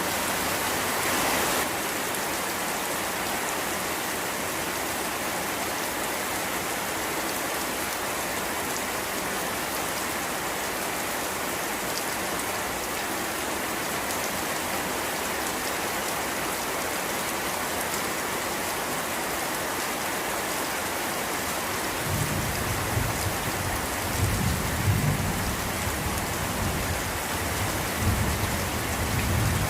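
Rain falling steadily, an even hiss. About three-quarters of the way through, a low rolling rumble of thunder comes in beneath it and swells in waves to the end.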